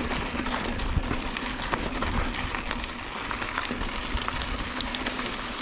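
Mountain bike tyres rolling over rocky, gravelly singletrack: a continuous crunching crackle with many small clicks and rattles.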